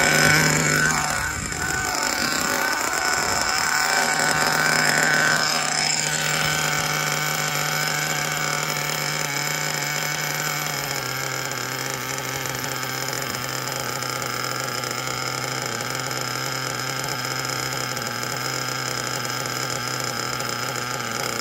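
Small nitro RC car engine running at high revs. Its pitch swings up and down in the first six seconds as it revs and passes, then settles into a steady buzzing drone that drops a little in pitch about eleven seconds in.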